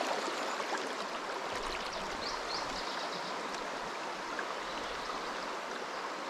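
Shallow river current rushing steadily over a riffle, a constant noise of flowing water.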